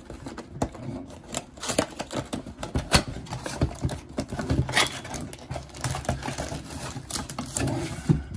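Cardboard trading-card box being opened by hand, its flaps and inner tray pulled apart, and the foil-wrapped card packs inside rustling as they are handled, with many irregular clicks and crackles.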